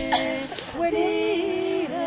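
Two women singing an Occitan spinning song (chant de quenouille) in two-part harmony, holding long notes, with a short breath about half a second in.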